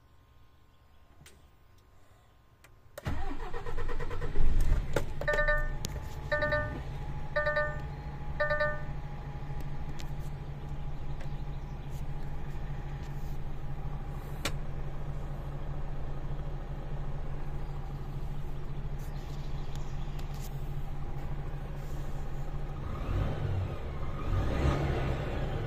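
DAF XF480 truck's PACCAR MX-13 inline-six diesel cranking and catching about three seconds in, then idling steadily. Four short dashboard warning beeps sound just after the start, and near the end the engine is revved up.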